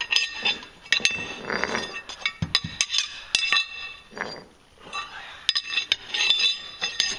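Metal clinking and striking: a dozen or so irregular, sharp metal-on-metal taps, each ringing briefly, with a few short rustles between them.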